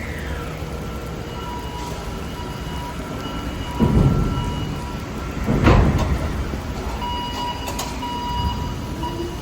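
Steady rain-and-machinery noise at a container terminal, with thin high warning tones sounding on and off. A tone falls away at the start, and two loud rushing bursts with a low rumble come about four and six seconds in.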